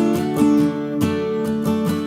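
Background music: strummed acoustic guitar playing a steady rhythm.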